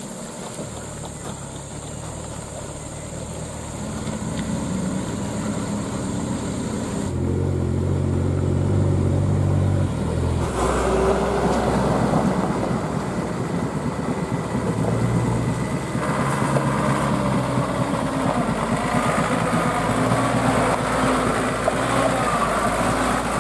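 Diesel engines of loaded Mitsubishi Canter trucks running under load as they crawl along a rough dirt track. The engine note changes abruptly a few times, from one truck to another.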